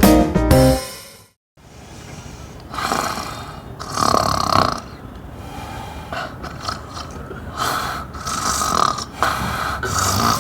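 A person snoring heavily in sleep: a run of loud, rasping snores, about one every second or two, beginning shortly after a piano cue breaks off.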